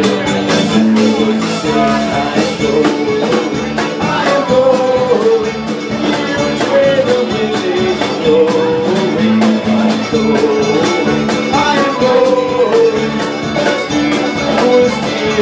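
Live Irish folk band playing an instrumental passage, a fiddle leading over accordion, keyboard and guitars with a steady strummed beat.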